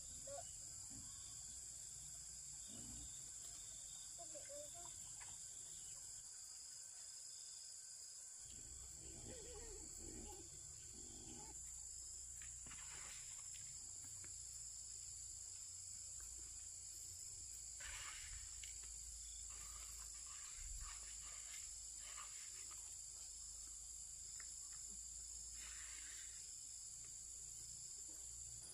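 Insects trilling steadily in a high, even chorus, with a few faint rustles or knocks now and then.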